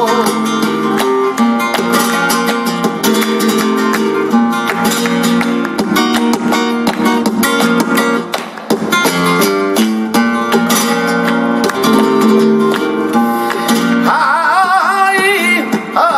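Flamenco guitar playing an interlude in tangos rhythm, with palmas (rhythmic handclapping) all through. A man's flamenco singing comes back in near the end.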